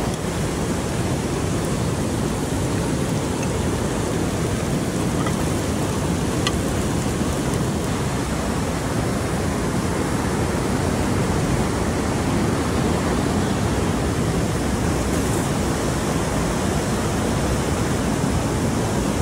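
Steady rush of a river tumbling over a small white-water cascade, with one faint click about six and a half seconds in.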